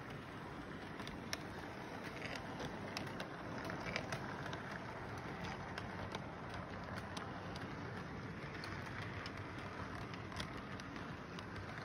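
Toy electric train running past on its track: a steady running noise from the locomotive's motor and rolling wheels, with scattered clicks of the wheels over the track joints.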